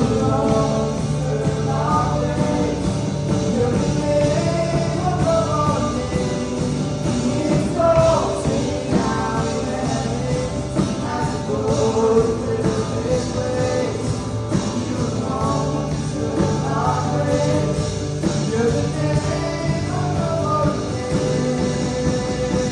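Live worship band: a woman sings the lead melody over a full kit of drums, bass guitar and acoustic-electric guitar.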